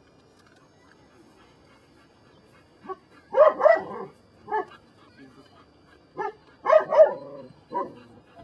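Belgian Malinois barking up at its handler while working at heel: a run of barks starting about three seconds in and another about six seconds in.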